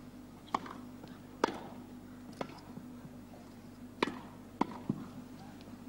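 Tennis ball struck by rackets in a rally on a grass court: sharp single pocks about a second apart, then three quicker ones in close succession near the end, as at the net.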